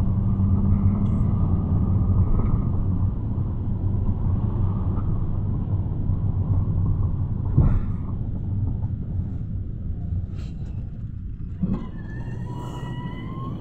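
Cabin noise inside a Luidor-223237 minibus built on a Mercedes-Benz Sprinter Classic: the diesel engine and tyres rumble steadily as it drives. A knock comes about halfway and another near the end, and the rumble eases as it slows for a stop. A brief high squeal sounds at the very end.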